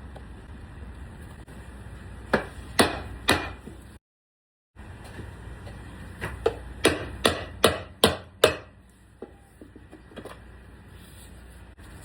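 A series of sharp knocks: three close together, then a quick run of six about two or three a second, then a faint one, over a steady low rumble.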